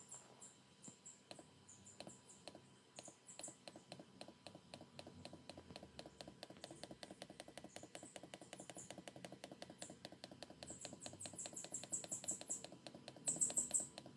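Rapid computer mouse clicks, several a second and quickening after the middle, as browser tabs are closed one after another. Bursts of high-pitched chirping sound over the clicks and are loudest near the end.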